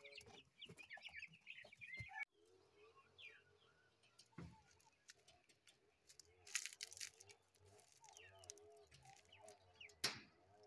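Domestic birds calling: quick high chirps for about two seconds, then after an abrupt drop, faint low wavering cooing that repeats, with a few sharp clicks.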